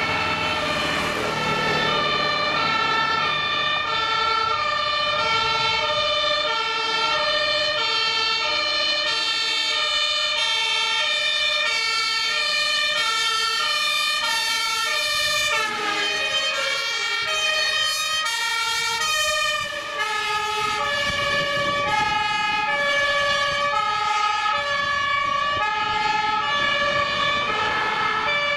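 German two-tone emergency-vehicle sirens (Martinhorn) sounding their alternating high and low notes as a column of fire-brigade vehicles approaches and passes. About halfway through, the pitch slides down as one vehicle goes by, and a second horn with a different note pair carries on.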